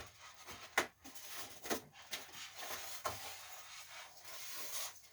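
Handling noise: uneven rubbing and scraping with a few sharp clicks.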